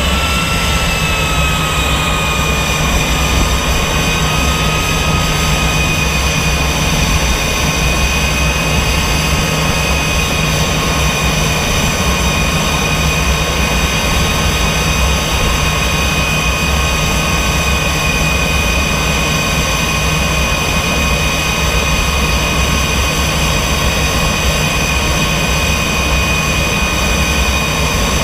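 Aero L-39 Albatros's Ivchenko AI-25TL turbofan running at idle just after start. A steady high whine over a low rumble, its pitch easing slightly in the first couple of seconds and then holding steady.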